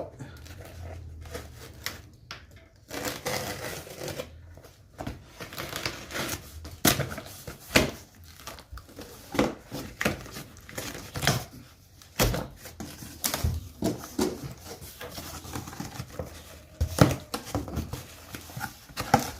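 A parcel being unpacked by hand: packing material crinkling and tearing, with irregular knocks and clatters as heavy items inside are moved.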